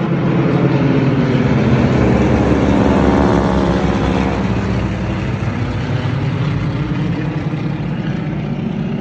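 Formation of four vintage single-engine propeller aircraft flying low overhead, their piston engines droning. The sound swells to its loudest two to three seconds in, then the pitch drops as the planes pass and move away, and it slowly fades.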